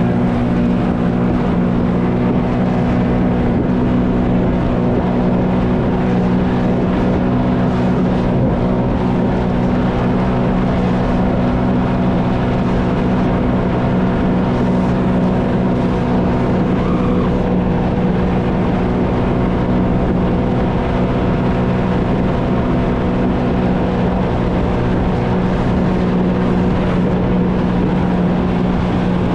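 Jet ski engine running at a steady, unchanging pitch over a constant rushing noise.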